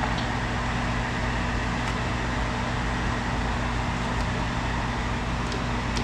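Steady hiss of chicken, diced carrots and onion cooking in a hot buttered pan, over a steady low hum, with a few faint clicks.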